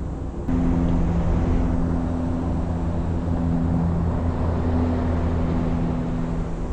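An engine running at a steady speed, a low even hum that starts abruptly about half a second in.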